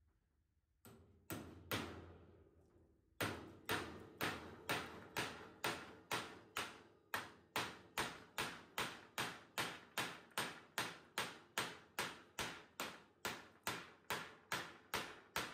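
Claw hammer blows on the wire-mesh top of a wooden rabbit-tractor frame: a few scattered strikes about a second in, then a steady run of sharp, ringing blows, about two a second.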